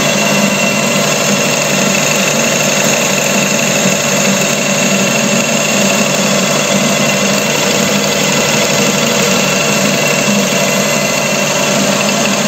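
Metal lathe turning a steel shaft with a carbide-insert tool taking a cut: a steady machine hum and a high whine over a constant cutting hiss.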